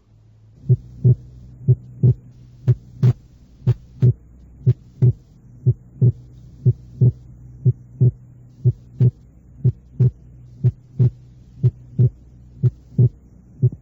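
Recorded heart sounds at about one beat a second, each beat a pair of thuds (first and second heart sound), over a steady low hum. The second sound is split during expiration because the pulmonary component is delayed, as in right bundle branch block.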